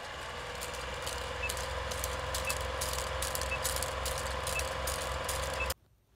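Film projector running: a steady mechanical whir and hum with scattered crackles and a faint tick about once a second, stopping abruptly near the end.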